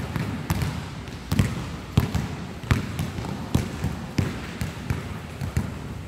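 A basketball bouncing on a hard court as it is dribbled: a series of sharp, irregular bounces, about one or two a second.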